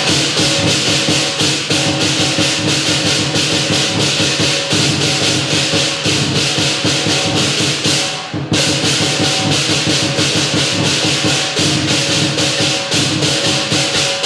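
Lion dance percussion band of drum, cymbals and gong playing a fast, steady beat of about three cymbal crashes a second over ringing gong tones. It breaks off for a moment about eight seconds in, then starts again.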